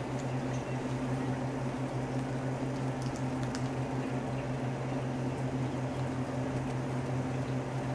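A steady low hum under an even hiss, with a few faint clicks about three seconds in.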